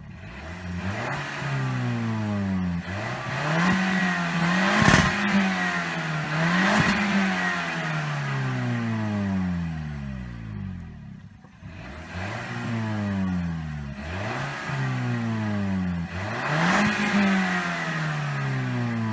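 Stock exhaust of a 2021 Toyota Corolla's 1.2-litre turbocharged four-cylinder petrol engine being revved repeatedly, its pitch rising and falling about seven times, held high for a few seconds around the middle.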